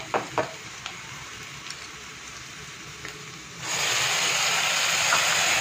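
A few light clicks of a spatula in a pan of frying potatoes. About two-thirds of the way in, a sudden loud, steady sizzling starts as wet masala paste goes into the hot oil.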